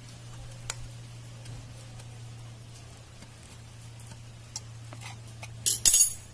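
Steel scissors cutting through a CD softened in boiling water, with a few faint clicks from the blades and a steady low hum underneath. Near the end there is a louder clatter as the scissors are set down.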